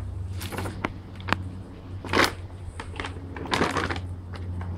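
Plastic dog-food bag crinkling and rustling in irregular bursts as puppies bite and tug at it, loudest about two seconds in and again a little past three and a half seconds.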